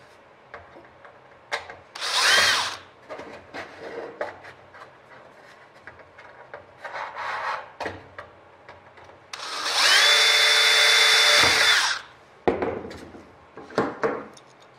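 Cordless DeWalt drill boring holes through an aluminium attach angle and flap spar. A short run about two seconds in rises in pitch, and a longer, louder steady whine of about two and a half seconds comes near the middle. Clicks and knocks of handling the drill and parts fall between the runs.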